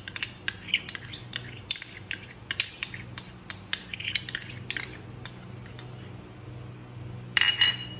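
Metal spoon scraping and tapping against the inside of a small ceramic cup, a quick run of light clicks about three a second, then a louder ringing clink near the end.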